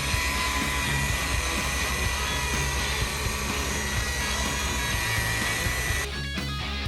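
Electric polisher buffing a boat's fiberglass hull, running with a steady whine over background music. It cuts off suddenly about six seconds in, leaving rock guitar music.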